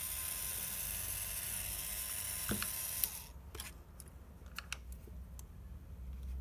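Small electric motor of a corded Detailer hair trimmer, out of its housing, running steadily with a high hiss and a slight noise that calls for lubrication; it cuts off suddenly about three seconds in. A few light clicks of handling follow.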